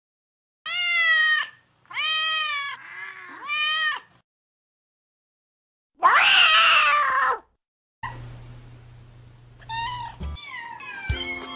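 Domestic tabby cat meowing: three short meows in the first four seconds, then a longer, louder, harsher meow about six seconds in. After that comes a low hum with a few fainter falling calls, and music starts near the end.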